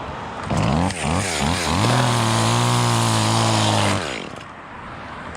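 Echo 2511T top-handle chainsaw's two-stroke engine blipped up and down a few times, then held at high revs for about two seconds before winding down and cutting out about four seconds in. The saw won't hold an idle, which the owner blames on not having cleaned it.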